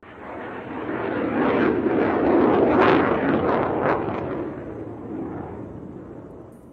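Jet aircraft flyby sound effect: a rushing jet-engine noise that swells to a peak about three seconds in, then fades away.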